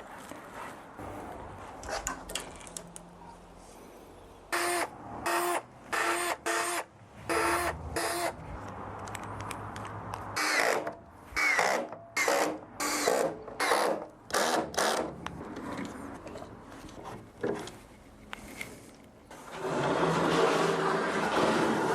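A cordless drill/driver driving screws into wood, in a run of short trigger bursts about half a second each, then a second run of bursts at a higher pitch. Near the end a longer, louder, rougher tool noise starts.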